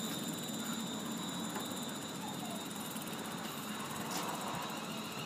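Electric passenger train standing at the platform, its equipment giving a steady hum with a thin, high whine over it.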